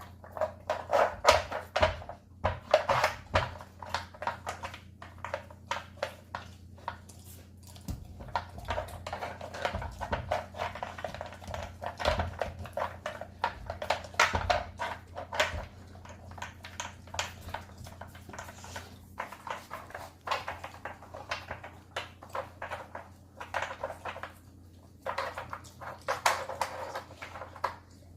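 Weimaraner puppy working a dog food puzzle toy: many short, irregular knocks and clatters as the puzzle pieces are nosed and pawed aside, in clusters with quieter gaps.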